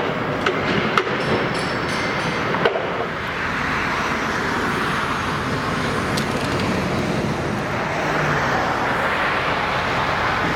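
Steady road and traffic noise of a moving car, with a few sharp clicks in the first three seconds.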